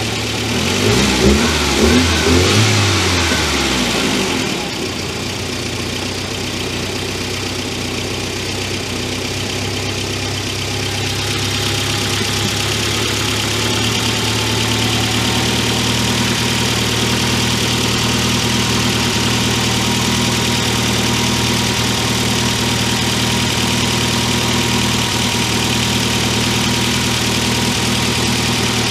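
Volvo 245 engine blipped up and down in revs a few times in the first seconds, then settling to a steady idle. It is running with the air mass meter disconnected while a poor-running fault is traced.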